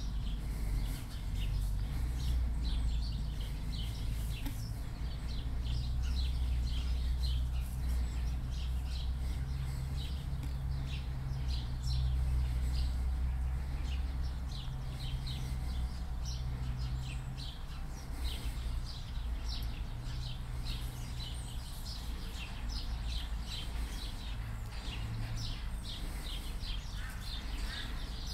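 Small birds chirping in many short, high notes, over a low steady rumble.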